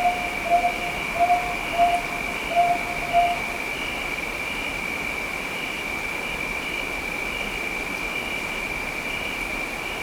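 Steady rain hiss under a continuous high-pitched whine. In the first three and a half seconds six short, lower-pitched calls come at an even pace.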